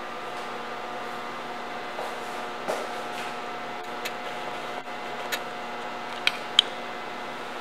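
A steady machine-like hum with a few fixed tones, broken by several short sharp clicks and taps, the loudest two close together near the end.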